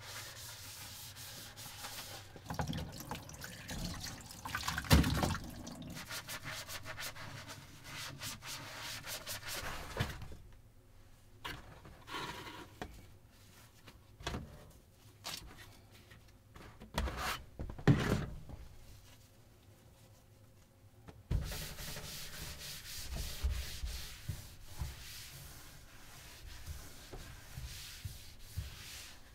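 Dishes scrubbed in a stainless-steel sink, then a wooden countertop wiped down with a disinfecting wipe: long stretches of steady rubbing and scrubbing, broken by a few sharp knocks.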